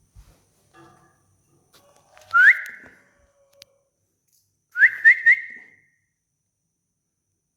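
Short upward-sliding whistled notes: one a little over two seconds in, then three in quick succession about five seconds in.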